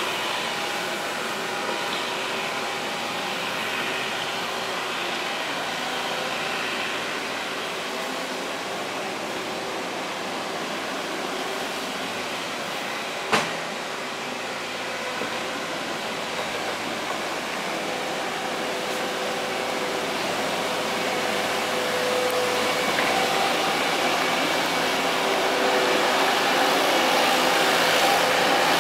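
Menzi Muck A71 walking excavator's engine running steadily, its sound growing louder over the second half. A single sharp knock about halfway through.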